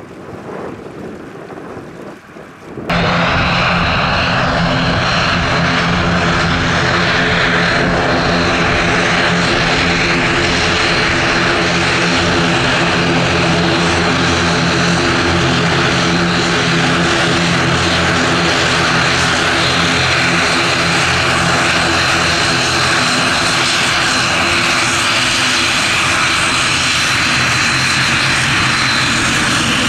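Wind buffeting the microphone, then about three seconds in a sudden start of a turboprop airliner's engines running loud and steady, with an even propeller hum.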